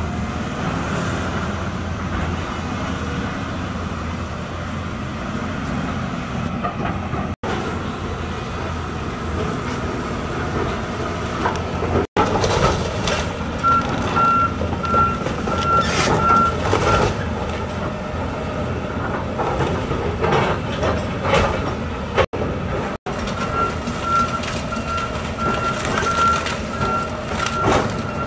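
Volvo tracked excavator's diesel engine running steadily under load, with crunching and cracking of wood debris as the arm tears into the house. A warning alarm beeps evenly, about two or three times a second, in two stretches, one in the middle and one near the end.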